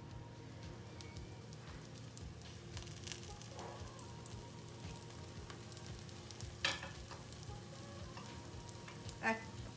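Olive oil sizzling and crackling faintly as it is poured around the edge of a wheat-flour flatbread frying in a nonstick pan. One short, louder click about two-thirds of the way through.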